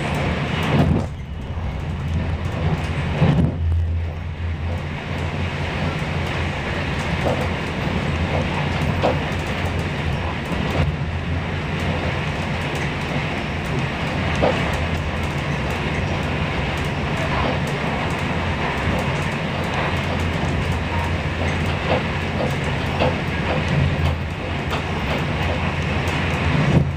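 Steady rumble of a moving passenger train heard from inside the carriage, wheels running on the rails with occasional faint clicks. The noise dips briefly twice in the first few seconds.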